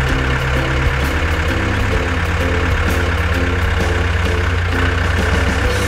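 Tractor engine sound effect running steadily with a constant low rumble.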